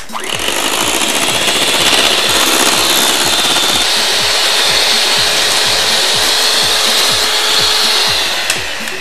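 Electric hand mixer running with its beaters in a bowl of butter and icing sugar, beating it into cream. The steady whirr drops to a quieter level near the end.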